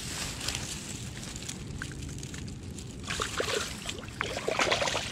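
A bass being let go into shallow water at the bank, a slosh of water as it slips in and swims off. About three seconds in comes a run of crackling as hands push through dry grass stems, over a steady low rumble of wind on the microphone.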